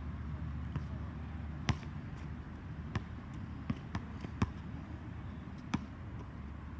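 A basketball bouncing on a hard outdoor court: about six sharp, short bounces at uneven spacing, over a steady low rumble.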